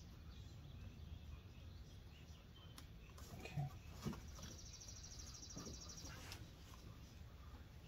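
Quiet handling in an engine bay: a shop towel being moved about and a couple of soft knocks about halfway through, over a low steady background rumble. A fast, high, evenly pulsed chirping trill runs for about two seconds in the middle.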